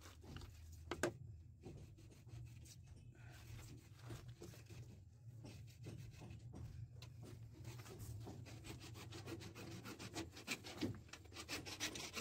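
Faint scraping and rubbing from hand work on a PVC drain pipe run, over a low steady hum, with one sharp click about a second in. Near the end, quick rhythmic scraping strokes start up.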